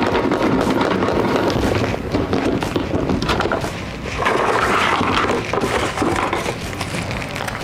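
A clear plastic storage box full of folded paper slips being shaken: a dense clattering rattle of paper and plastic, with a brief lull about four seconds in.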